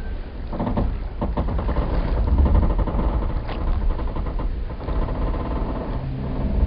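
Wooden boat hulls and pier timbers creaking and groaning in long, stuttering creaks, several in succession, over a low rumble, with a couple of sharp knocks.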